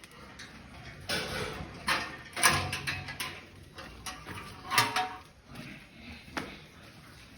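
Pigs in a pen letting out about five short squeals and grunts, the loudest near the middle and about five seconds in.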